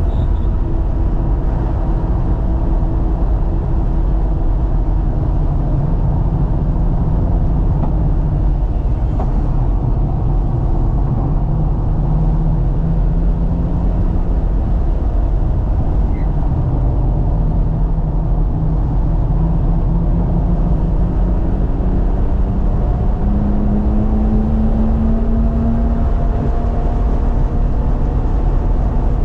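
Twin-turbo inline-six of a BMW M3 Competition driven hard on track, heard from inside the car over steady road and tyre rumble. The engine pitch sags around the middle, then climbs higher near the end as it pulls.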